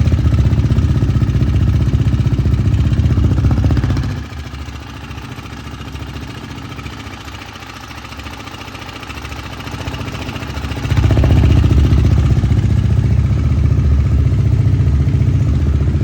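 KTM Duke 390's single-cylinder engine idling just after a cold start, with a rattling 'khad khad khad' noise from the engine. A mechanic puts the noise down to timing chain slap from a failed timing chain tensioner. It drops quieter about four seconds in and comes back up loud about eleven seconds in.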